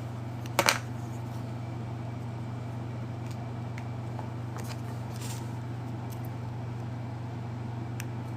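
Steady low electrical hum from the audio setup, with a sharp double knock about half a second in and a few faint clicks later: a microphone being handled and switched over.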